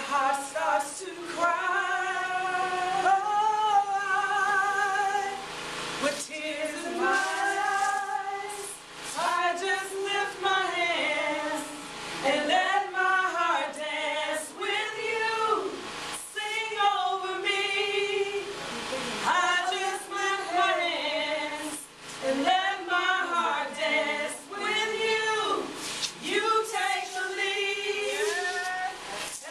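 A woman's voice singing a slow worship song in long held phrases with vibrato, little else heard under it.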